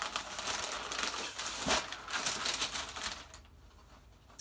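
Packing paper rustling and crinkling inside a cardboard shipping box as it is unpacked by hand. The rustling dies away about three seconds in.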